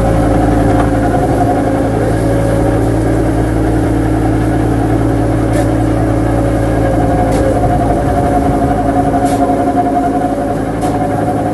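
Fishing boat engine running steadily at a constant speed, with a few faint ticks over it.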